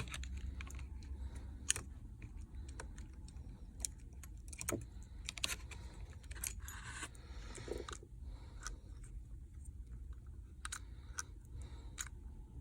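Irregular light clicks and ticks of small tools and phone parts being handled while a smartphone's logic board is swapped, with a short scrape about seven seconds in, over a faint low hum.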